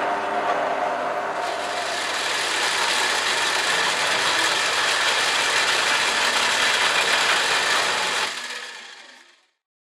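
Drill press running with a drill bit cutting into a metal rod. About a second and a half in, the steady motor hum gives way to a brighter, hissier cutting noise, and near the end it fades out.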